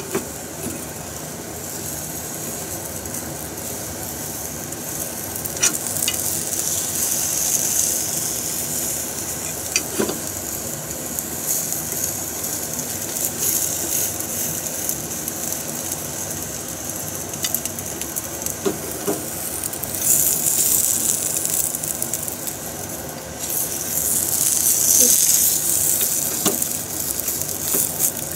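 Beaten egg sizzling in an oiled rectangular tamagoyaki pan over a gas flame, a steady frying hiss that swells louder a few times. A few light clicks sound over it.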